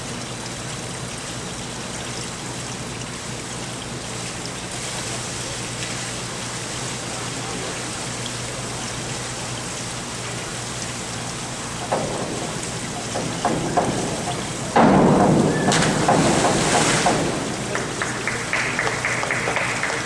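Steady background noise of an indoor pool hall. From about twelve seconds in, scattered claps begin, and near fifteen seconds a sudden loud rush of noise, a diver's splash into the pool with applause, lasts about three seconds before easing off.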